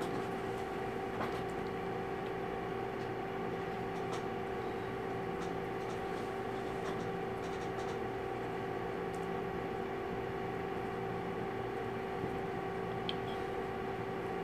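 Steady machine hum of a room's ventilation or equipment, holding two even tones, with a few faint ticks and squeaks from a marker writing on a whiteboard.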